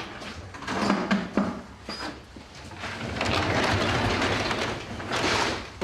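Two knocks about a second in, then a long rolling rattle: a sectional garage door being moved along its tracks.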